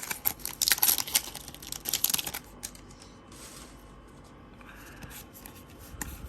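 Foil wrapper of a Pokémon trading card booster pack being torn open and crinkled: dense crackling for about two and a half seconds, then quieter, scattered rustling.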